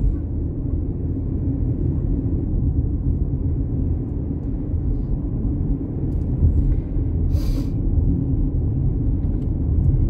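Steady low rumble of a vehicle driving on a rural road, heard from inside the car, with a brief hiss a little over seven seconds in.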